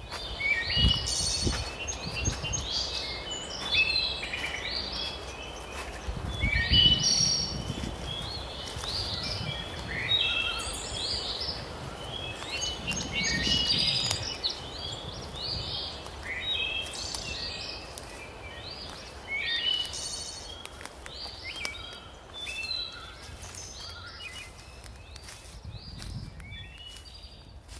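Several songbirds singing and chirping in a spring forest, overlapping calls and trills going on throughout. A few low rumbles rise under the birdsong now and then.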